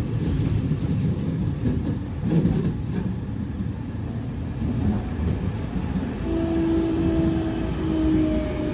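Running noise of a JR West 207 series electric train with the whine of its Toshiba GTO inverter. The rumble of the car is steady throughout. About six seconds in, a clear inverter tone sets in and steps and slides slowly down in pitch. This set is known for an abnormal inverter sound that is off from the rest of the class.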